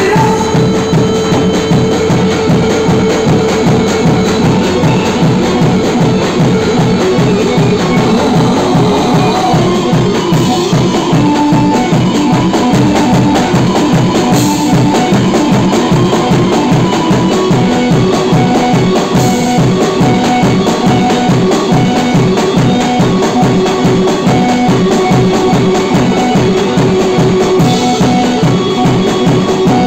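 Loud live band playing Kurdish line-dance music: an arranger keyboard carries the melody over a drum kit keeping a steady, driving beat, with an electric saz.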